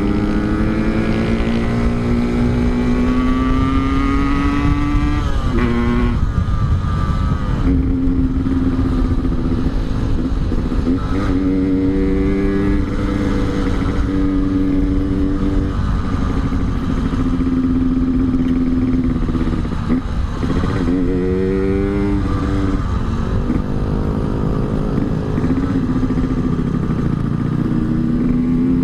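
Yamaha RX-King's two-stroke single-cylinder engine on an Altec C20 aftermarket exhaust, ridden hard through the gears: the engine note climbs in pitch, then drops back at each shift, about half a dozen times.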